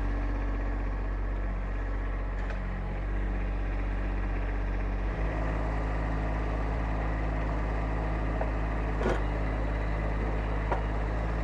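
Diesel engine of a compact tractor-loader-backhoe running steadily as the backhoe is worked. Its note shifts slightly about five seconds in, and there is one brief knock near the end.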